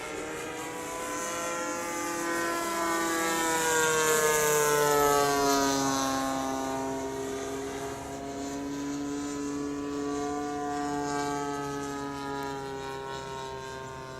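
A 1400 mm radio-controlled P-51 Mustang model plane flying past with its engine and propeller sound. The pitch falls as it passes and it is loudest about five seconds in. A second, fainter pass follows near ten to eleven seconds.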